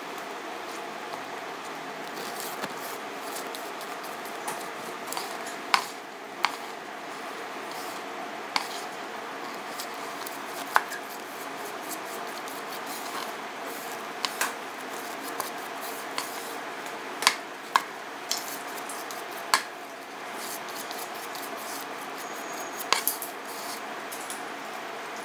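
Batter being scraped from a mixing bowl into a springform cake tin with a silicone spatula. About a dozen sharp clicks and knocks of the spatula and bowl against rims come at irregular moments, over a steady background hiss.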